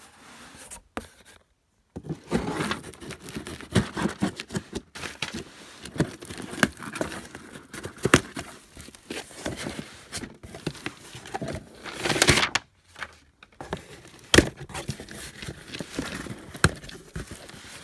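A cardboard shipping box and its kraft paper packing being handled and opened by hand. Rustling, crinkling and scraping, with scattered sharp clicks and knocks, start about two seconds in and are loudest near the end.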